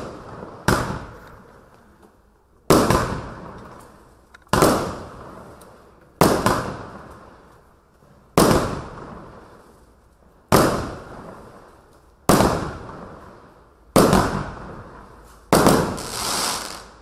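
Kimbolton Noble Neon 12-shot, 25 mm firework cake firing single shots about every two seconds, nine in all. Each is a sharp bang that dies away over a second or so. Near the end, the last shot is followed by a swelling rush that rises and then fades.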